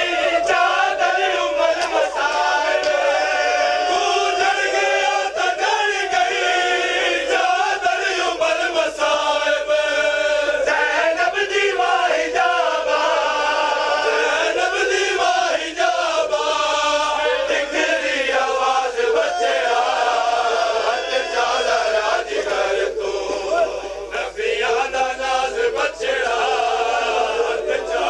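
Men's voices chanting a Punjabi noha, a Shia mourning lament, over the crowd. Slaps of hands striking bare chests in matam come through the singing.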